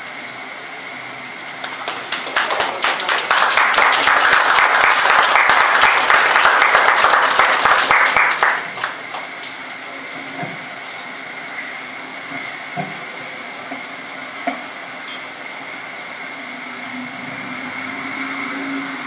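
Audience applause that builds over about a second, stays dense for about five seconds and then dies away, with a few last claps afterwards, over a steady hum with a thin high whine.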